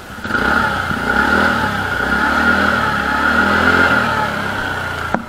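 TVS Ntorq 125 scooter's single-cylinder four-stroke engine revved from near the exhaust, starting suddenly, rising in pitch, then easing back before cutting off near the end. The engine is running on old oil well past its change interval, and the owner calls the sound not too bad.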